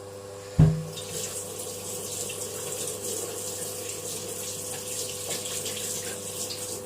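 A single thump about half a second in, then water running steadily from a tap.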